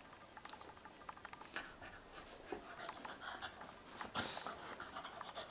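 Two Puli dogs play-wrestling on a shaggy rug: scuffling and rustling of fur with scattered light clicks, and two louder brief bursts of scuffling, about a second and a half in and about four seconds in.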